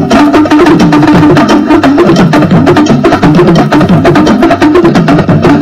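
Loud dance music with fast, busy percussion over a bass line.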